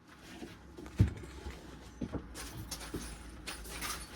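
Several dull knocks with rustling and scraping as things are handled and moved. The loudest knock comes about a second in, with smaller ones near two and three seconds.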